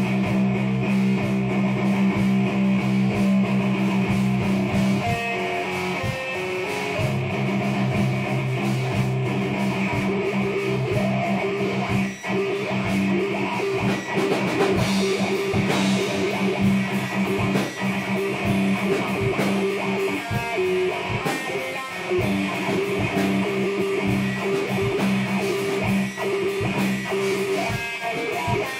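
Instrumental rock jam: electric guitar playing over a drum kit, with no vocals.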